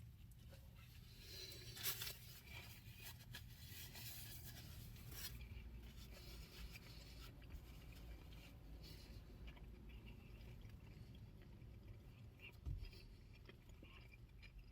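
Near silence with faint chewing of a bite of sandwich and light rustling, and a short tap about two seconds in.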